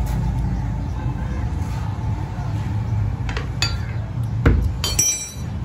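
Metal pry bar knocking and clinking against a fiberglass helmet shell and its mold as the shell is levered off: a few light taps, a heavy thud about four and a half seconds in, then a ringing metallic clink near the end. A steady low rumble runs underneath.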